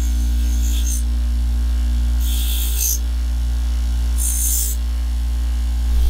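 A steady electrical hum, with three short high hissing rushes about two seconds apart.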